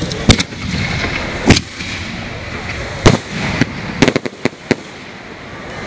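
Big colour firework shells going off: three loud bangs about a second and a half apart, then a quick cluster of sharper cracks about four seconds in.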